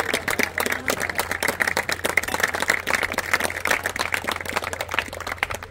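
A group of people applauding, many separate claps overlapping; the clapping dies away at the end.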